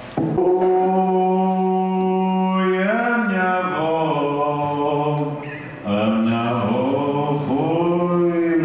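A man singing long held notes into a microphone at a live band gig. The first note is held for about two and a half seconds, then the melody bends and moves through several swelling notes, with a short break a little before halfway.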